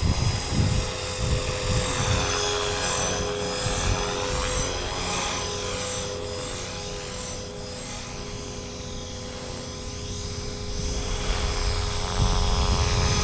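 Blade Fusion 360 electric RC helicopter in flight: a steady rotor and motor whine whose pitch bends as it passes. It grows fainter through the middle and louder again near the end.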